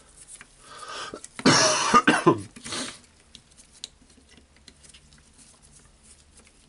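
A person coughing in a short burst about a second and a half in. After it come faint clicks and scratches of small plastic parts and wires being handled as a carbon brush holder unit is fitted into a cordless angle grinder housing.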